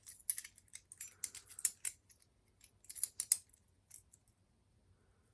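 Small metallic clicks and clinks of Yale padlock keys being handled, scattered through the first three and a half seconds, then quiet.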